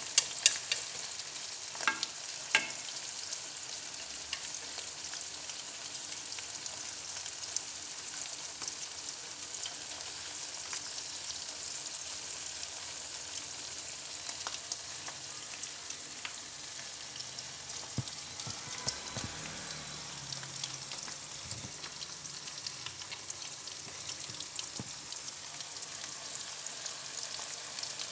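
Shrimp with lemongrass and ginger frying in hot oil in a wok: a steady sizzle dotted with small crackling pops, with a few sharp clicks in the first three seconds.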